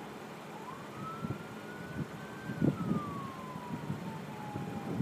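Emergency vehicle siren wailing, one slow pitch cycle: it rises for about two seconds, falls back over the next two and a half, and starts rising again at the end.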